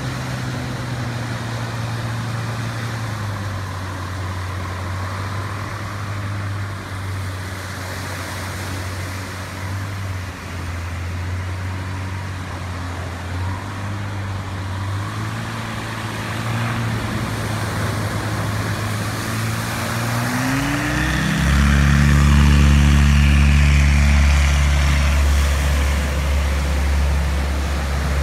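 SuperSTOL light aircraft's engine and propeller running at low power while it taxis on the beach, then rising in pitch about twenty seconds in to full power for the takeoff run, over the steady wash of surf.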